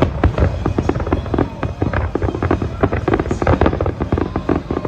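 Fireworks exploding in rapid, overlapping succession: many sharp bangs and crackling pops over a continuous low rumble.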